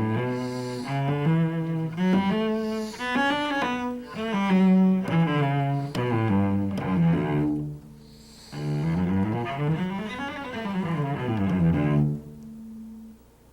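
Solo cello playing scales: a bowed scale stepping up and back down, a short break, then a quicker scale up and back down. The runs cross strings and shift position.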